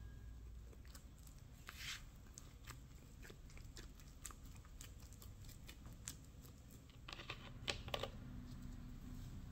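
Green silicone spatula working sticky pizza dough in a ceramic bowl: soft squelches with scattered light scrapes and ticks. Near the end, a quick cluster of sharper clicks and crackles as a plastic bottle's cap is twisted open.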